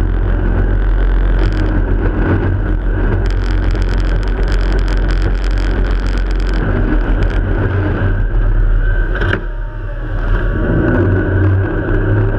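Jet boat running hard across open water, a loud steady rush of engine, water and wind on the microphone. A spell of rapid crackling about three to six seconds in, and the rush briefly drops about nine seconds in.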